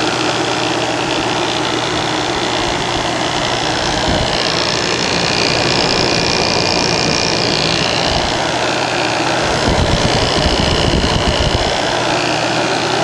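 1980 General Electric 5,000 BTU window air conditioner running: the rotary compressor humming steadily under the even rush of its fan blowing air through the coils, as the unit starts to cool.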